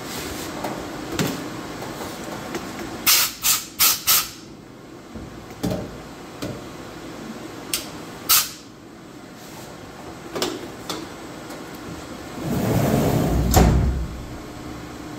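Compressed-air blow gun fired in short blasts to clear chips off the mill's vise and table: four in quick succession about three seconds in and another near the middle. Near the end, the Syil X7 CNC mill's enclosure door slides shut.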